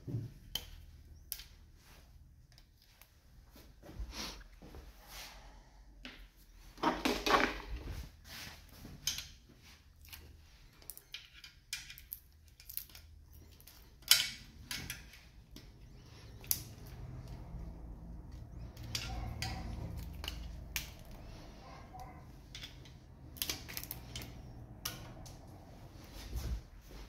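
Hand tools clicking and clinking on the rocker arms of an open Honda Civic R16 valvetrain during a valve clearance adjustment: scattered sharp metallic clicks, with a louder clatter about seven seconds in and a sharp knock about fourteen seconds in.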